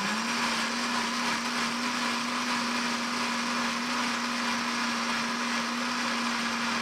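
Electric blender running at one steady pitch for about seven seconds, pureeing chipotle peppers in adobo sauce with Worcestershire sauce.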